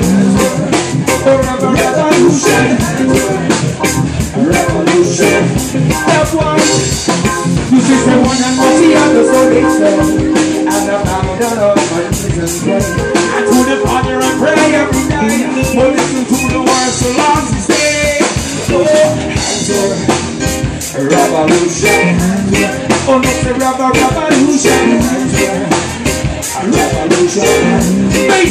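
Live reggae band playing: a male singer over electric bass, electric guitar, drum kit and keyboard, with a steady beat.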